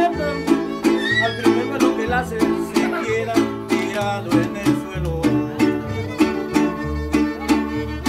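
Violin playing a melody over a steadily strummed string accompaniment with a bass line, in a regular beat.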